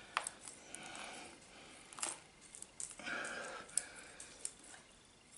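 Faint scraping and rustling from a mulberry bonsai's matted root ball being handled, with a few sharp clicks scattered through it.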